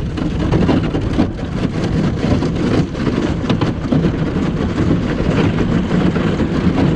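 Thin lake ice, about half an inch thick, crackling and crunching against a boat's hull as the boat pushes through it. The crackle sets in abruptly and runs on as a dense stream of sharp cracks.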